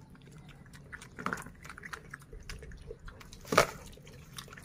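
A piglet and a baby monkey eating fried noodles from a wicker basket: many small wet smacks and chewing clicks, with one louder sharp noise about three and a half seconds in.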